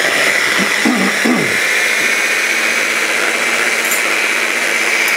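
Hand-held wand blender with a mini chopper bowl running steadily with a constant whine, chopping walnuts, garlic, parsley and olive oil into pesto.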